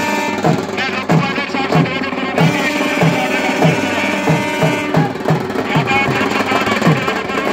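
Music with a steady drum beat, about two beats a second, and a melody over it.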